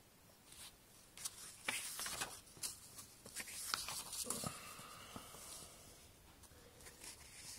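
Paper pages of a comic magazine being turned and handled by hand, rustling most between about one and four and a half seconds in, then quieter.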